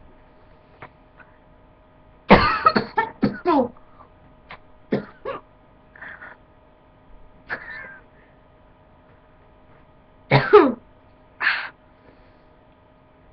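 A person coughing in fits after breathing in aerosol body spray: a quick run of harsh coughs about two seconds in, a few smaller coughs and throat-clearing sounds, then two more loud coughs near the end.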